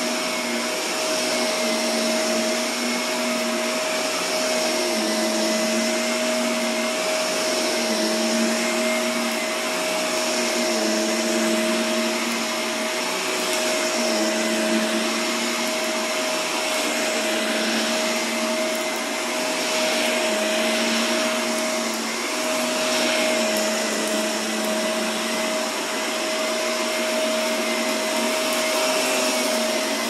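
Upright vacuum cleaner running on carpet: a steady motor whine and suction hiss, the lower hum shifting slightly as it is pushed and pulled across the pile.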